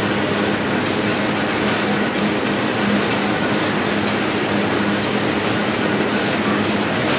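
Sack printing press running: a steady mechanical hum with a repeating clatter.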